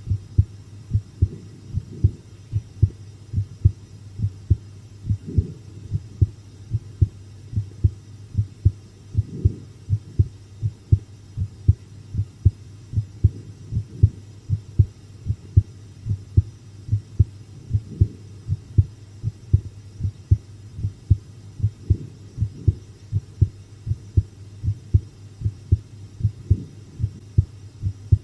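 Human heartbeat, low thumps in a steady even rhythm over a faint low hum. It was recorded while watching a scary video, and the recorder thinks it is beating faster than usual.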